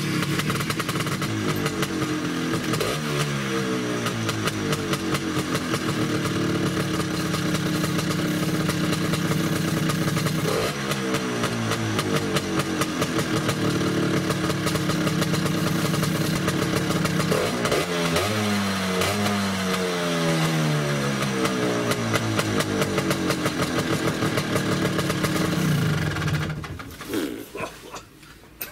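Tuned Vespa PX125 two-stroke engine (Quattrini M1X reed-valve cylinder, 34 mm Dell'Orto carburettor) running through an original 1980s T5 exhaust box. It idles between repeated throttle blips that rise and fall, with a cluster of quick revs about two thirds of the way in, and it cuts off near the end.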